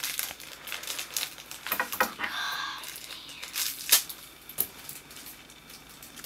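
Plastic packaging crinkling and tearing as small toy packets are handled and opened, with a run of sharp crackles and clicks, the loudest about four seconds in.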